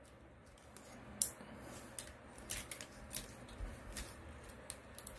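Faint clicks and rubbing of a 3A Bumblebee action figure's ankle joints being flexed sideways by hand, scattered irregularly.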